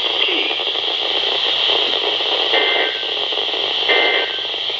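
NOAA Weather Radio reception full of steady static hiss. In the second half, two short warbling data bursts about a second and a half apart come through the static, typical of the SAME end-of-message code that closes an Emergency Alert System warning.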